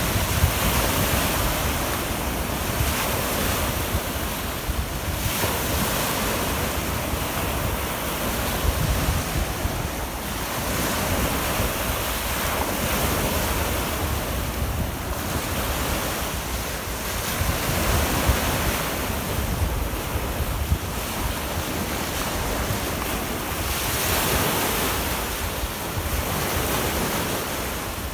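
Small waves breaking and washing on the shore in steady surges every few seconds, with wind buffeting the microphone.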